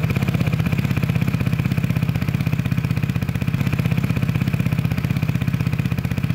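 Modern Vespa scooter's single-cylinder engine idling steadily through a freshly fitted K-Race Performance aftermarket slip-on exhaust, an even, rapid pulsing exhaust note.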